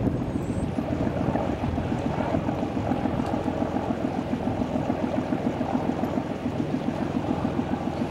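Engine of a two-masted, pirate-ship-style wooden excursion boat running as the boat motors past under power with sails furled: a steady, fast, even throb.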